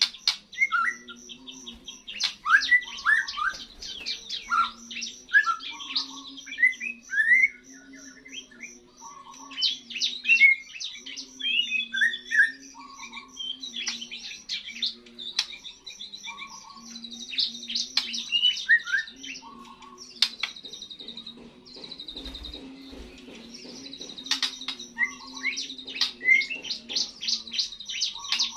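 A young white-rumped shama singing its first song after the moult: a busy run of short chirps, whistles and rapid ticking notes. A low wavering tone runs underneath.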